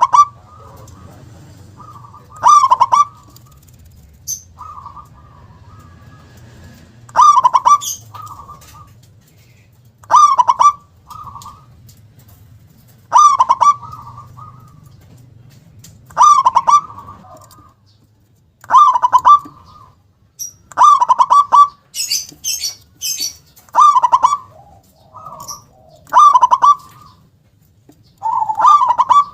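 Zebra dove (perkutut) singing its stuttering cooing song again and again, with a loud phrase about every two to three seconds and a big, punchy "kung" sound. About three-quarters of the way through comes a short burst of high chirps from another bird.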